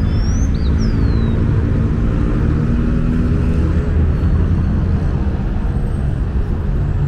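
City street traffic: engines of passing cars and buses running in a steady rumble. A few short, high, gliding chirps sound in the first second or so.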